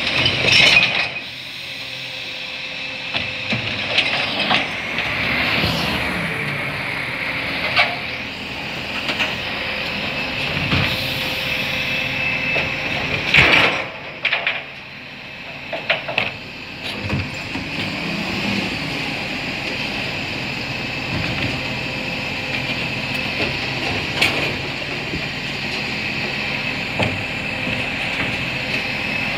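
Side-loader garbage truck running steadily while its automated arm lifts and tips recycling bins into the hopper. Loud crashes as the bin contents drop in come about a second in and again about halfway through, with smaller knocks and clunks of the arm and bins in between.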